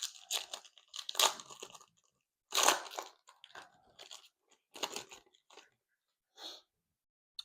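Trading cards being handled: a run of short, irregular papery scrapes and rustles as cards are slid and flipped through, the loudest about two and a half seconds in.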